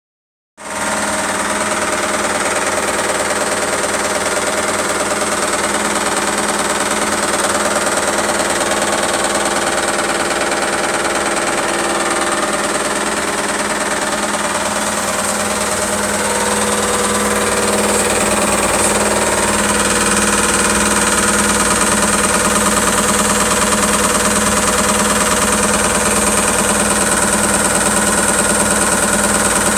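ISE W1607W washing machine on its high-speed spin, making a loud, steady, fast banging noise over the hum of the spinning drum, which grows a little louder about two-thirds of the way through. The owner takes it for the whole casing hitting against something as the drum spins.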